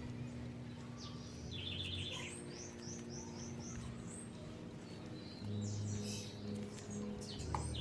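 Birds chirping in quick high series of short downward notes, over soft background music with sustained low chords that shift about five and a half seconds in.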